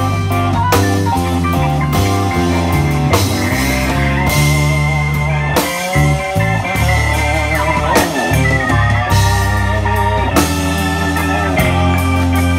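Live blues band playing an instrumental passage with no singing: electric guitar (a Fender Stratocaster) with bending, wavering notes over bass, keyboard and drum kit.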